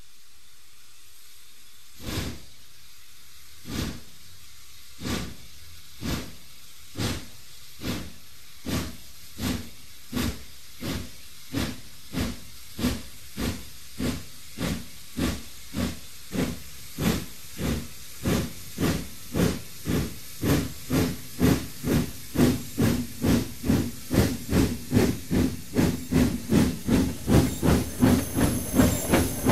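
Steam locomotive starting away up a steep gradient under a steady hiss of steam. Its exhaust beats begin about two seconds in, slow and well over a second apart, then quicken steadily to two or three a second and grow louder near the end.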